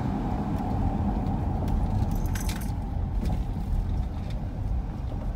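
Car driving slowly, engine and road noise heard from inside the cabin as a steady low rumble, with a brief light rattle or jingle about halfway through.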